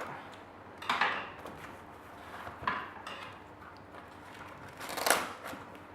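Cardboard shipping package being handled: three brief knocks and scuffs, about one second in, near three seconds, and the loudest about five seconds in.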